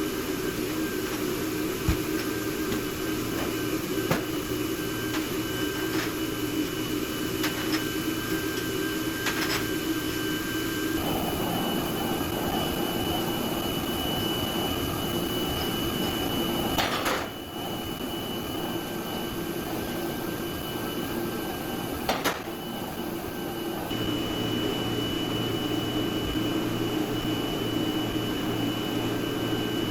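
Food-factory production machinery running steadily: a hum with a high whine and occasional clicks. Its tone changes abruptly a few times.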